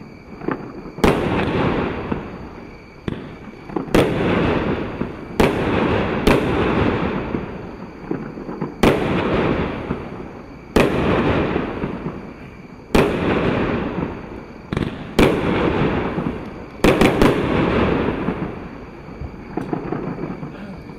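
Europyro EP-4007B Willows Galaxy, a 19-shot 30 mm compact firework cake, firing: sharp bangs every one to two seconds, each trailing off in a long fading rumble. A quick run of three bangs comes about three quarters of the way through, and the last few shots are weaker.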